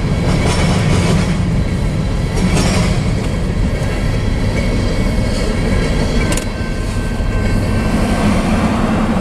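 Covered hopper cars of a freight grain train rolling past on the rails: a steady low rumble of wheels on track, with a couple of sharp clicks from the wheels, one about two and a half seconds in and one about six seconds in.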